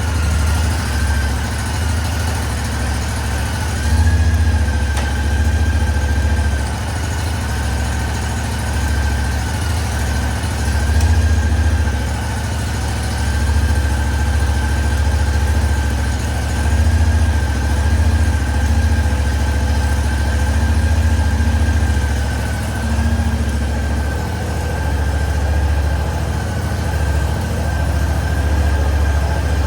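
Cub Cadet 1440 garden tractor engine running steadily, with a few swells in level and a steady high tone over the engine note, during a test run of a newly installed transmission.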